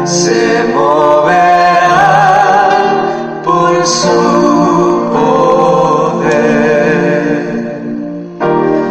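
Christian worship song: a voice singing with vibrato over instrumental accompaniment, with short breaks between phrases about three and a half and eight and a half seconds in.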